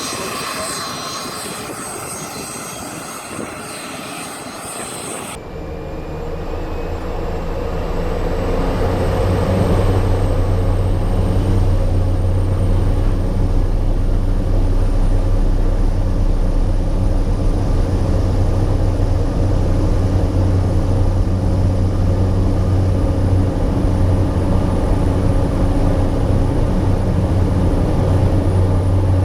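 Cessna 208 Caravan's turboprop engine and propeller heard from inside the cockpit: after an abrupt change about five seconds in, a steady low drone builds in loudness over a few seconds and then holds, with a faint high whine above it.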